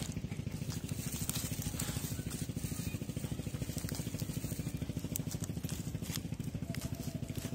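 A small engine idling steadily nearby, heard as a rapid, even low pulsing. Over it come scattered crackles of dry straw and soil as a dog digs into a field-mouse burrow.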